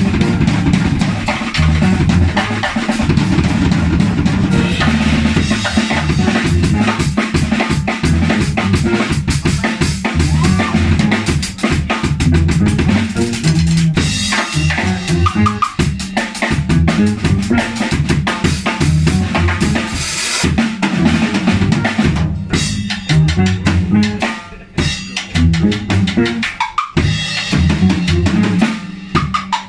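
Drum kit played hard with sticks in a live band: dense snare, tom, cymbal and kick-drum fills over a bass guitar line. About three-quarters of the way in, the drumming thins into sparser, separated hits with short gaps.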